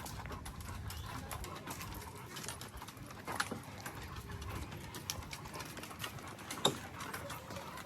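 Footsteps on a path during a walk: light, irregular clicks and scuffs over a steady outdoor background hiss, with two sharper clicks about three and a half and six and a half seconds in.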